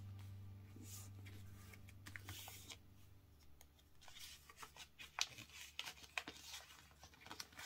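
Paper being folded and creased by hand: soft, scattered rustles and light taps of the sheet against a table. Faint background music fades out about three seconds in.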